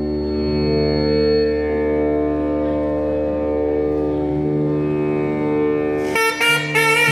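A steady drone holds a sustained pitch under a Carnatic concert. About six seconds in, a nadaswaram comes in with a quick, ornamented, gliding phrase.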